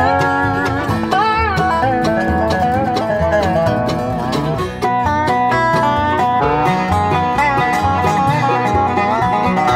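Background bluegrass music with quickly picked banjo and guitar.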